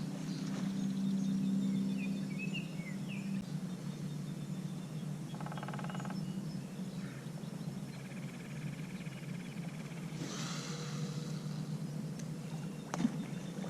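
Evening outdoor ambience: a steady low hum under scattered bird chirps and short buzzing trills, with a sharp click at the start and another near the end.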